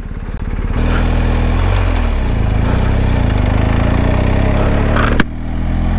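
BMW R1250 GS Adventure's boxer-twin engine idling, then pulling away from a stop about a second in with rushing wind building. The engine pitch drops and climbs again at a gear change about two seconds in. A sharp click comes about five seconds in, followed by a brief dip in level.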